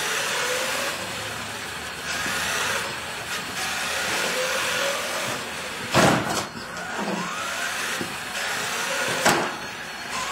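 Small electric RC car's motor whining, its pitch rising and falling as it speeds up and slows down, with tyre hiss on the floor. Two sharp knocks break in, a loud one about six seconds in and a lighter one near the end.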